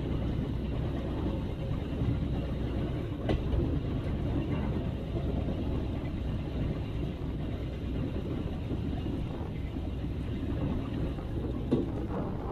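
LXD2 narrow-gauge diesel locomotive running along the track: a steady rumble of engine and wheels, with a sharp click about three seconds in and another near the end.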